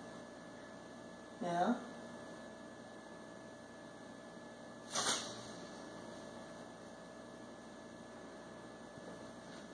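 Low, steady electrical hum of room tone, broken by a short murmured voice sound about a second and a half in and a brief hiss about five seconds in.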